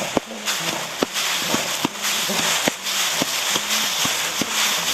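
Footsteps at a steady walking pace, about two a second, over a constant hiss, with a low hum that comes and goes.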